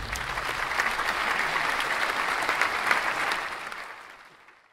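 Applause, many hands clapping, fading out over the last second or so.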